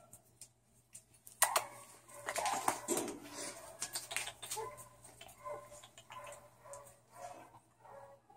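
Clicks and rattles as a leashed pit-bull-type dog scuffles about among wire animal cages, loudest between about one and a half and four seconds in, with faint animal calls around them.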